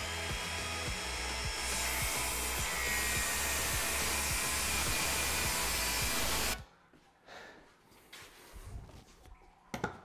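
DeWalt 20V XR cordless circular saw running at full speed and cutting through a pine board, with a steady whine from the blade. It stops abruptly about six and a half seconds in. Faint handling sounds and a sharp click follow near the end.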